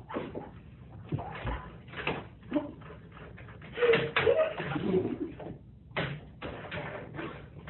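Scattered knocks and thumps, with a short wavering squeal about four seconds in.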